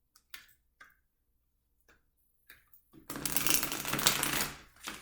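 Tarot deck being handled and shuffled: a few soft card taps in the first seconds, then a dense spell of rapid shuffling starting about three seconds in and lasting about a second and a half.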